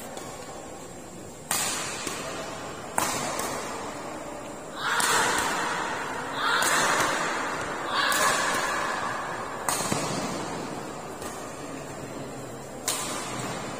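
Badminton rally: rackets smacking a shuttlecock back and forth, about seven sharp hits roughly one every one and a half seconds, with a longer gap before the last one near the end. Voices from the sidelines rise briefly between some of the hits.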